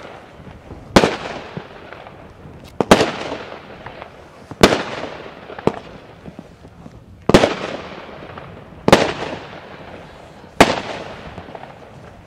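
Aerial fireworks bursting one after another: six sharp bangs spaced about one and a half to two seconds apart, each trailing off over a second or so, with a couple of smaller pops in between.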